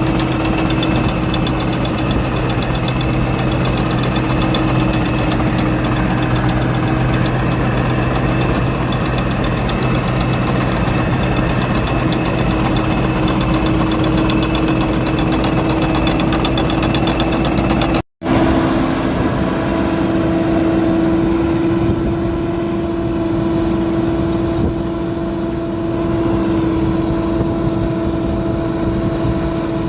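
Combine harvester engine running with a steady drone. It breaks off for an instant about two-thirds of the way through and comes back with a slightly different pitch.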